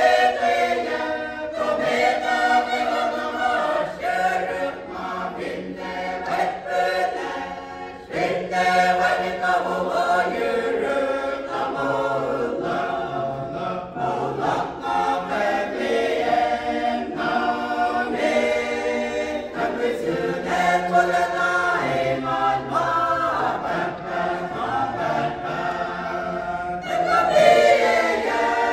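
Mixed church choir of men and women singing a hymn together, unaccompanied, with short breaks between phrases about 8 and 14 seconds in.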